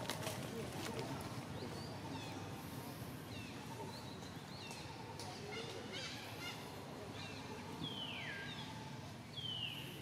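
Outdoor ambience with short, high chirping animal calls scattered through, and two longer calls falling steeply in pitch near the end; a few faint clicks.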